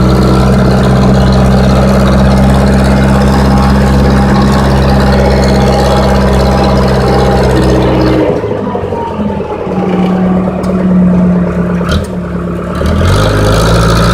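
Diesel engine of a Case 580E backhoe running steadily, heard from inside the cab. About eight seconds in its low drone drops away for some five seconds, leaving a steady hum and a slowly falling whine with a click near the end, before the engine sound comes back.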